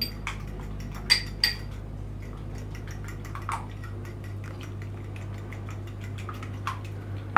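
A metal fork whisking beaten eggs in a ceramic bowl, ticking and clinking irregularly against its sides, with two sharper ringing clinks about a second in. A steady low hum runs underneath.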